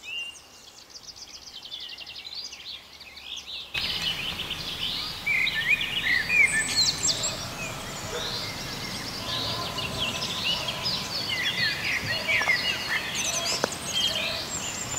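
Songbirds chirping and singing, many short calls overlapping over a faint outdoor hiss; the chorus gets louder and busier about four seconds in.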